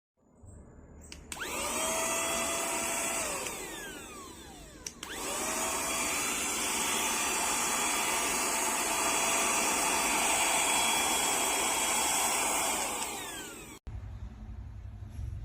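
Cordless handheld vacuum cleaner's motor switched on, whining up to speed, running about two seconds and winding down. It is then switched on again and runs steadily for about eight seconds before winding down. A low hum follows near the end.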